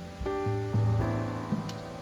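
Instrumental background music: a slow melody of separate plucked notes, each starting cleanly and ringing on.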